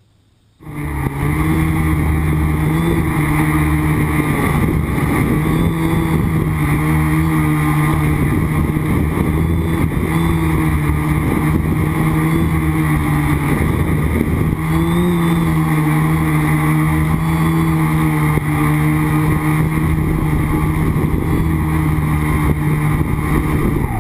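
Small quadcopter's electric motors and propellers heard through its onboard camera: a steady hum that starts abruptly about half a second in, its pitch rising briefly every few seconds as the throttle changes.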